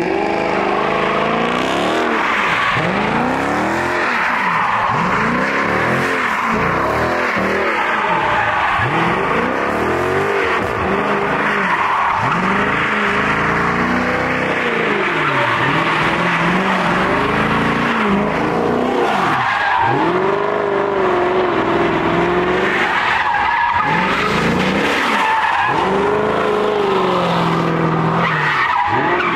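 Dodge Charger's V8 doing donuts: the engine revs rise and fall again and again, every second or two, over continuous tyre squeal and screech.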